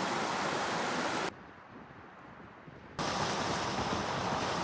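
Loud, steady rushing of falling water in two stretches, the first cut off abruptly about a second in and the second starting abruptly partway through, with only a faint hiss between.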